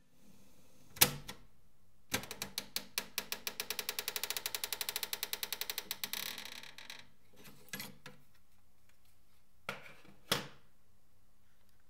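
Top-loading cassette deck stopped and ejected: one loud mechanical click of the key. Then a long run of quick clicks that speed up and fade out. Then a few plastic knocks as the cassette is lifted out of the open door.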